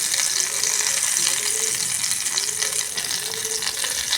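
Hot ghee sizzling and crackling, with fresh leaf juice squeezed into it.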